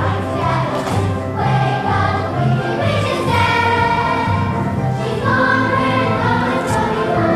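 A stage-musical number: a chorus of voices singing together over instrumental accompaniment, with a bass line stepping between notes.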